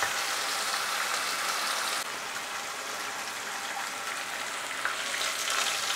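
Masala paste with a splash of water sizzling and spitting in hot tempering oil in a non-stick kadhai as it is stirred with a spatula: a steady crackling hiss that drops a little after about two seconds.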